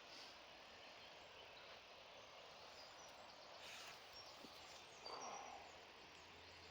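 Near silence: faint outdoor background hiss, with a few brief, faint, high chirps near the middle.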